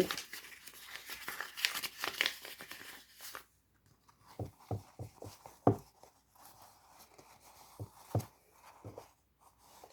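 Plastic inhaler funnel being fitted onto a glass cup: rustling and crinkling handling noise for about three seconds, then a string of light, irregular knocks and taps against the cup.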